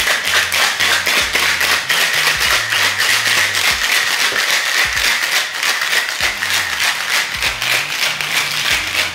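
Ice rattling hard inside a cocktail shaker being shaken to mix a cocktail, in a quick, steady rhythm of about six shakes a second.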